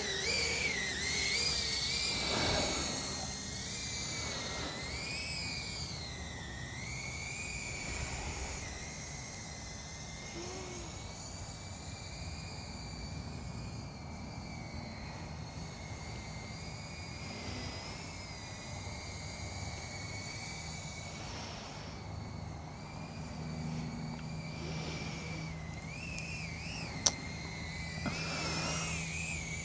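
Small FPV quadcopter's motors and propellers whining, the pitch wavering up and down with the throttle. It is louder in the first few seconds, with a short click near the end.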